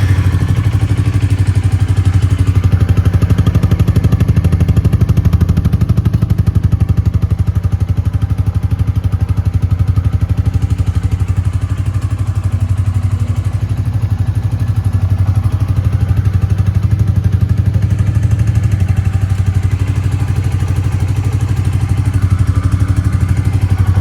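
Royal Enfield Bullet 350's single-cylinder engine idling steadily through its stock exhaust, with an even rapid beat of exhaust pulses, just after a start.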